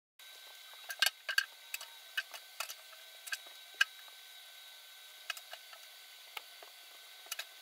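Scattered light clicks and knocks of scrap wood pieces being picked up and handled, at irregular times, over a faint steady hiss with a thin high whine.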